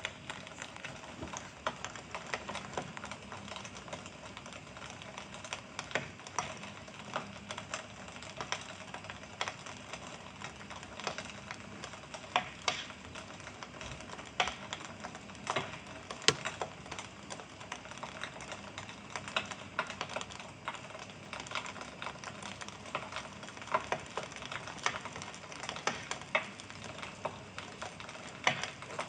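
Wood fire crackling in a fireplace: irregular pops and snaps over a steady hiss.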